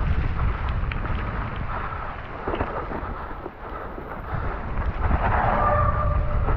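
Wind buffeting the camera microphone and the tyres of a Cube Stereo 120 Pro electric mountain bike rolling fast over a muddy, leaf-strewn trail, with scattered knocks and rattles from the bike over bumps. A brief squeal sounds about five seconds in.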